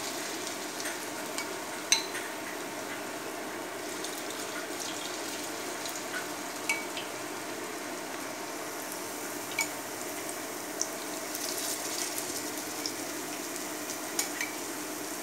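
Marinated paneer cubes shallow-frying in hot oil in a kadhai: a steady sizzle with scattered sharp pops and clicks, the loudest about two seconds in.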